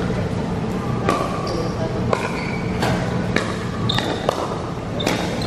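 Pickleball paddles striking a hollow plastic ball: sharp, irregular pops about once a second, several with a brief ringing ping, over the chatter of voices in a large hall.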